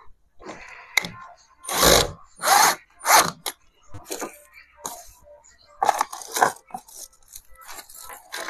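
Hands at work fitting door handle hardware: three loud, short, noisy bursts in quick succession about two seconds in, and another cluster around six seconds. Between them come lighter rustling and clicking as small screws are handled from a little plastic bag.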